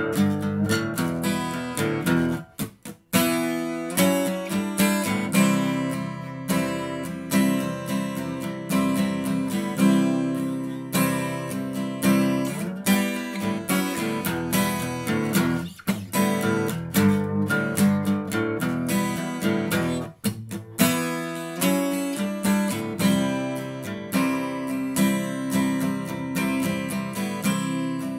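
Yamaha F310 steel-string acoustic guitar strummed in a steady rhythm of chords, with brief breaks about 3, 16 and 20 seconds in.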